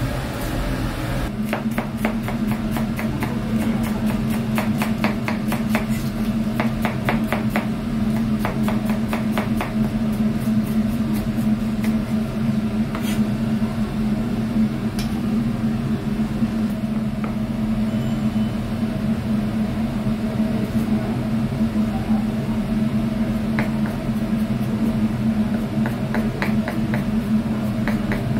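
Chef's knife chopping vegetables on a plastic cutting board in fast, even strokes. There is a long run of knocks, a pause, and a second run near the end, over a steady low hum.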